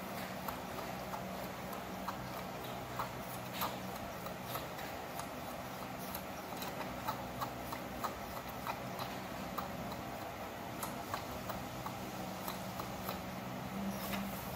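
Baby macaque sucking milk from a plastic feeding bottle, making irregular wet clicks and smacks at the nipple, a few a second, over a steady low hum.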